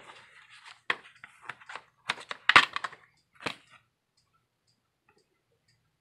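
Plastic DVD case being handled and opened to get at the disc: a run of sharp clicks and cracks in the first four seconds, the loudest about two and a half seconds in.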